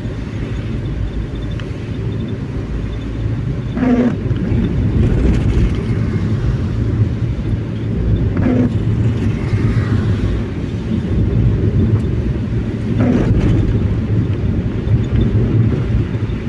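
A vehicle driving along, with a steady low road and engine rumble. A short sound recurs about every four and a half seconds.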